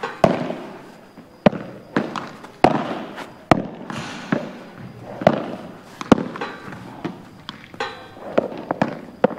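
Padel balls being hit with rackets and bouncing on the court: a string of sharp pops about one a second, sometimes closer together, each with a short echo.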